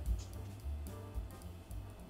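Background music with guitar over a low bass line.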